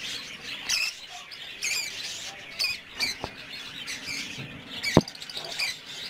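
Flock of lovebirds and budgerigars in an aviary giving many short high chirps and squawks. A sharp click comes about three seconds in, and a louder knock just before the end.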